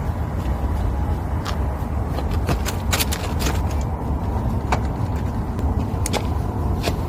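Firewood fire crackling: sharp, irregular pops and snaps over a steady low rumble.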